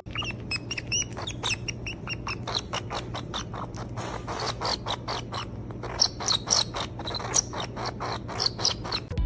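A small animal making a quick run of short, high-pitched chirps and squeaks, several a second, over a steady low hum.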